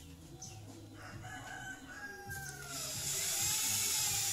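A rooster crows in the background with a long call that rises and falls. From about two and a half seconds in, a handheld electric drill starts running, a loud high whir that builds and covers the crow.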